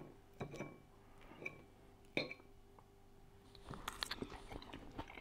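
A metal fork clinks and scrapes a few times on a plate as a forkful of pasta salad is picked up. Near the end, soft chewing as the salad is eaten.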